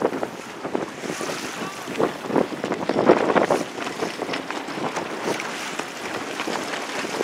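Wind gusting on the microphone over water washing and splashing, on a sailboat under way.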